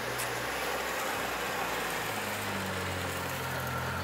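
Small hatchback car driving slowly past on a cobblestone street. Its engine hum grows louder and steadier about halfway through as it comes close.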